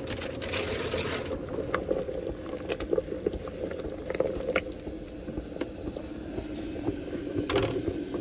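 Sauce bubbling in an electric multicooker pot, with scattered light clicks and scrapes of a spoon stirring against the pot. A brief hiss in the first second.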